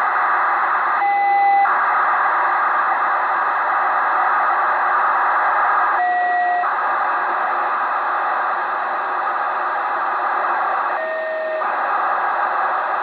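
FUNcube-1 amateur satellite's telemetry downlink received on a Kenwood 2m all-mode transceiver: a steady rushing data signal in receiver hiss. About every five seconds there is a short break in the signal, three times in all, and its edge tone drifts slowly lower in pitch as the Doppler shift of the passing satellite changes.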